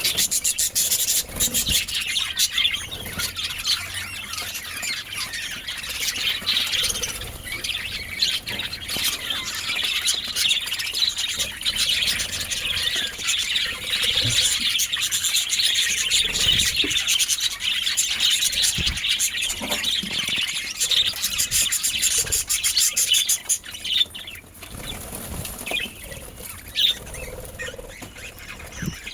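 Budgerigars chattering and chirping continuously in a busy, overlapping warble, growing quieter about three-quarters of the way through.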